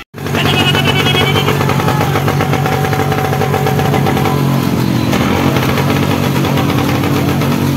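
Royal Enfield motorcycles' single-cylinder engines running close by, loud and pulsing, with the engine note stepping up about five seconds in.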